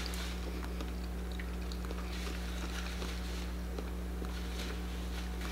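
Quiet room tone: a steady low electrical hum with a few faint, scattered soft clicks.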